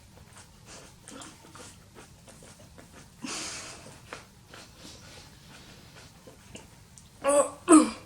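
A woman breathing hard through her mouth and nose in pain from the heat of a chilli she has just bitten, with a strong breath out about three seconds in and two short, loud pained cries near the end.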